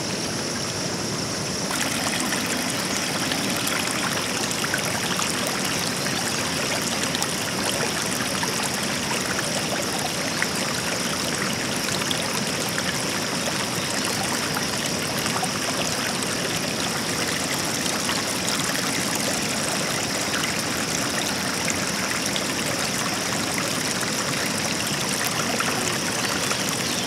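Flooded river water rushing steadily over rocks, with a steady high-pitched tone above it.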